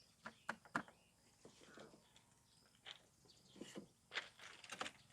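Near silence broken by a few faint, scattered clicks and knocks, as of things being handled.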